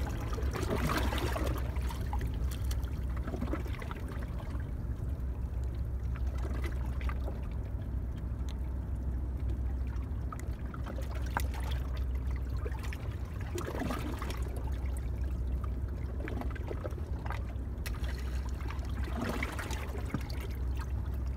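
Water lapping and trickling at the shoreline rocks over a steady low rumble, with scattered small clicks and taps from handling the fishing rod, reel and a small fish.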